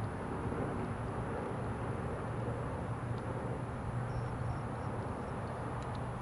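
Steady outdoor background with a constant low engine-like hum, and a few faint short high chirps about four seconds in.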